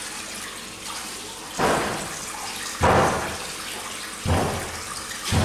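Tap water running into a washbasin, with four louder splashy bursts of water about a second apart.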